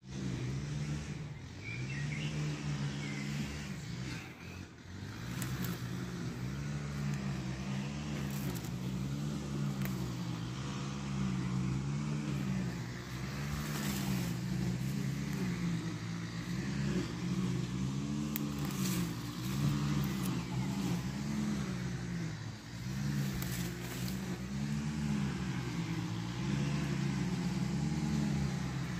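A motor running steadily, its pitch wavering up and down in a repeating pattern every second or two.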